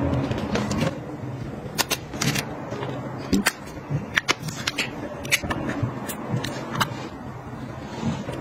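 Close handling of small toiletries during packing: an irregular string of sharp clicks, taps and crinkles as plastic items and foil sachets are picked up and set into a fabric pouch, over a steady low hum.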